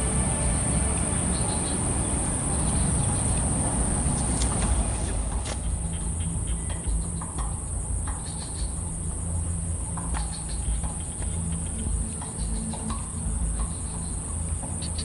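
Steady high-pitched chirring of an insect chorus, over a low rumble, with a few short faint chirps and ticks scattered through it.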